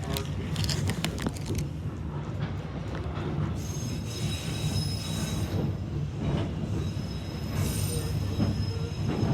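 Passenger train rolling along the track behind a diesel locomotive: a steady low rumble with a quick run of clicks at the start, then high-pitched wheel squeal a few seconds in and again near the end, typical of wheels grinding through curves.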